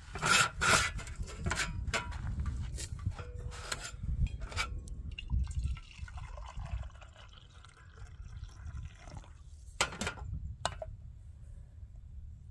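Coffee poured from a stainless-steel French press into an insulated camp mug, after a run of sharp metallic clinks and knocks as the press and mug are handled. Two more knocks come about ten seconds in.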